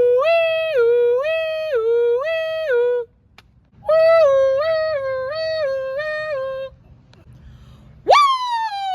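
A person imitating an emergency siren with the voice: a two-tone 'nee-naw' that steps between a high and a low note about twice a second, in two runs with a short break. Near the end it turns into a wailing siren that sweeps sharply up, then glides down.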